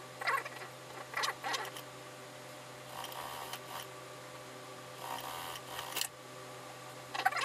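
Suit-trouser fabric rustling and sliding as hands smooth it and set it under the presser foot on a sewing-machine table: a few short scuffs, then two longer rustles about three and five seconds in, over a steady low hum.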